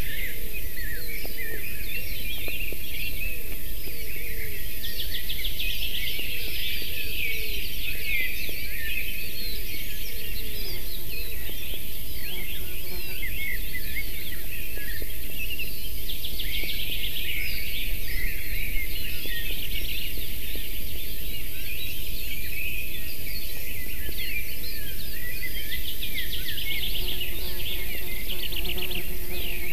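Chorus of small forest songbirds singing many short chirping phrases, with a rapid trilled song repeating about every ten seconds. Under it runs a steady low background noise.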